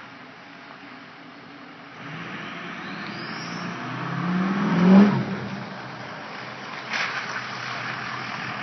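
A 2003 Ford F-250's turbocharged engine revving, its note climbing to a peak about five seconds in and then dropping back, with a high turbo whistle rising in pitch as it builds. A short rush of noise follows about two seconds later.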